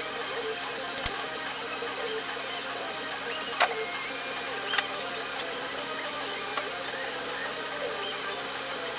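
Small metallic clicks and taps of a screwdriver and headlight mounting parts against a chrome grille's headlight bucket: two quick clicks about a second in, a sharper one about three and a half seconds in, and a few lighter ones after. A steady background hum runs underneath.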